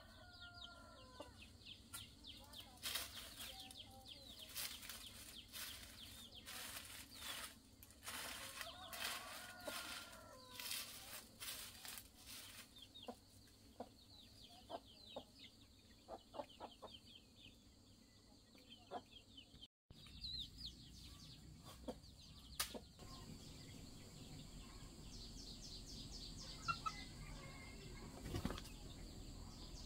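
Twig broom sweeping a bare dirt yard in repeated brushing strokes, with chickens clucking now and then. After about twenty seconds the sweeping stops, leaving soft clucking of chickens over a faint, fast high ticking.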